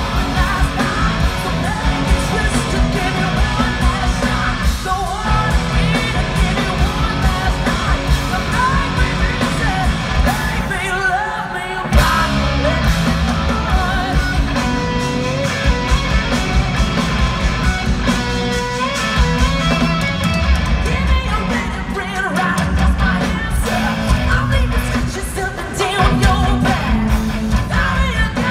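Hard rock band playing live in an arena: distorted electric guitars, bass and drums, with a woman singing and shouting over them, heard through the hall's PA.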